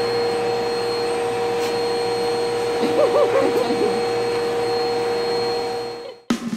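Upright vacuum cleaner running steadily through its hose attachment, a constant whine over the motor noise. It cuts off suddenly about six seconds in, and music begins right at the end.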